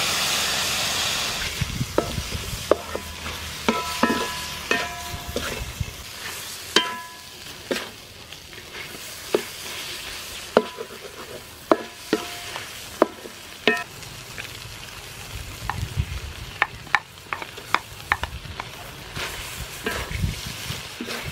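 Wooden spatula stir-frying shrimp and egg in a large metal wok, over a steady sizzle; the spatula knocks against the wok again and again at irregular intervals, each knock making the metal ring briefly. The sizzle is loudest in the first couple of seconds, as fish sauce hits the hot pan.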